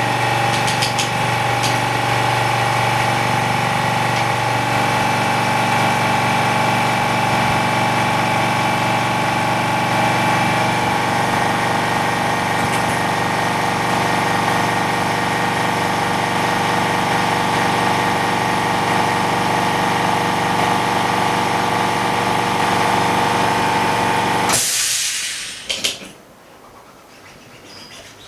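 OCA bubble remover machine running with a steady mechanical hum, as it pressurises the laminated glass to clear air bubbles. About 25 seconds in it stops with a brief loud hiss of released air, then goes quiet.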